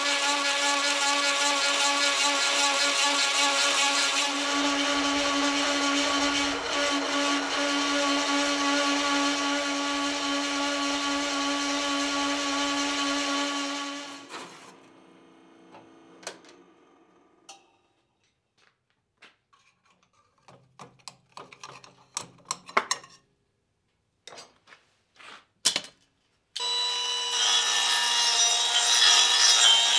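A drill press turns a 4-inch carbide-tooth hole saw cutting through quarter-inch steel plate: a steady motor hum under a harsh cutting noise, which stops about halfway through. A stretch of near quiet follows, with scattered light clicks and knocks. Near the end a cordless die grinder starts with a high whine, its burr deburring the edges of the cut holes.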